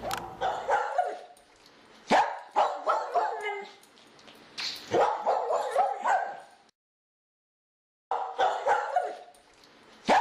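A dog yipping and barking in quick runs of four or five short, high calls, each run starting with a sharp bark. Midway there is a gap of dead silence of about a second and a half.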